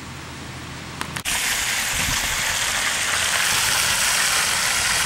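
A low car-engine rumble, then a click about a second in, after which a steady, louder rushing hiss takes over.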